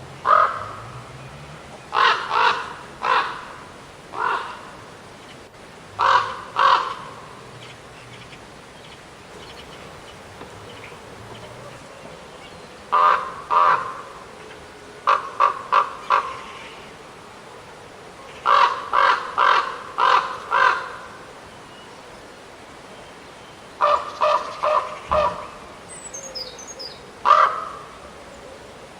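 Raven calling, harsh caws in bouts of one to five, with pauses of a few seconds between bouts.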